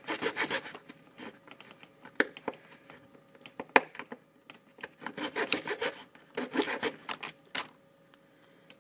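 A knife blade scraping and cutting a groove into a wooden clothespin half, in quick bursts of short strokes with pauses between. A single sharp click about four seconds in.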